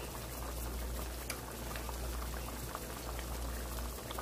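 Thick tomato-and-pepper stew bubbling at a simmer in a large pot, with many small irregular pops and plops over a steady low hum.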